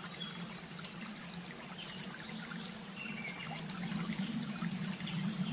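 Soft, steady background of trickling, flowing water with a low steady hum underneath and a few faint, short high chirps scattered through.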